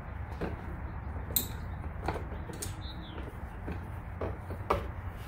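Scattered light clicks and knocks of plastic and metal parts as a motorcycle mirror with a built-in turn signal and its wiring are worked out through the fairing, over a steady low hum.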